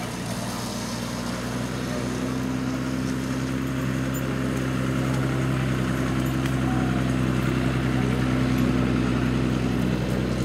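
An engine running steadily at a constant speed, slowly getting louder.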